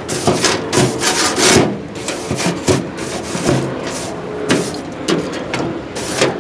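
Scraping strokes across the cast-iron grates of a propane grill, repeated and irregular, loudest about a second and a half in.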